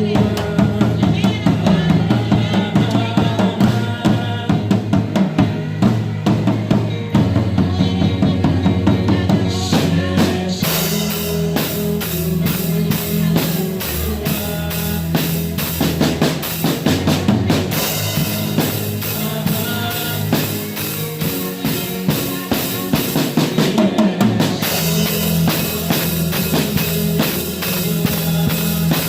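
Drum kit with bass drum and snare playing a Christian worship song over sustained bass notes. Bright cymbals open up about ten seconds in, drop out briefly, then come back.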